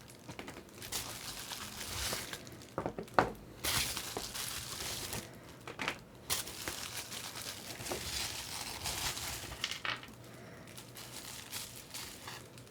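Packaging crinkling and rustling in irregular bursts, with a few sharper clicks, as model parts are unwrapped and handled.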